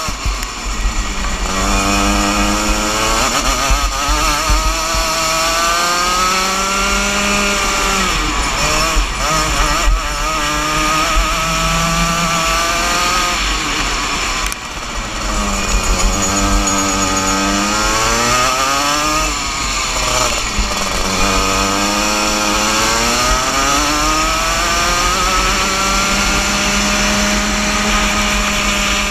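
A 125cc Junior Max two-stroke kart engine at racing speed, heard from the driver's seat. Its pitch climbs and drops over and over as the kart accelerates down the straights and slows for the corners, with a brief drop in revs about halfway through.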